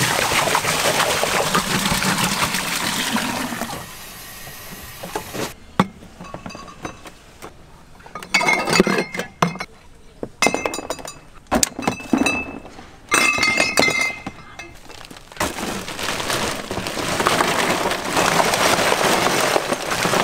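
Bowls and dishes clinking and clattering in the middle stretch: a string of sharp knocks, some with short ringing tones. Before and after it there is a steady rushing hiss.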